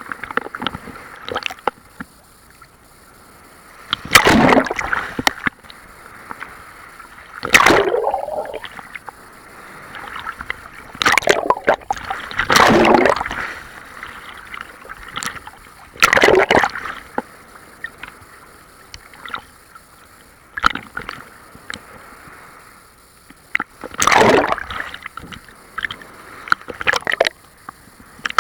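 Large sea waves breaking and splashing: about six loud surges a few seconds apart, with small splashes and crackling water between them.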